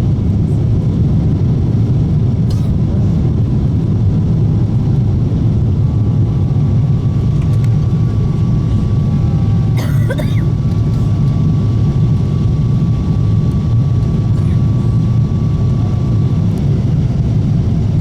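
Steady low rumble in the cabin of a Boeing 777-300ER airliner in flight, the engine and airflow noise holding an even level. A thin steady tone sounds through the middle, and there is a single faint click about ten seconds in.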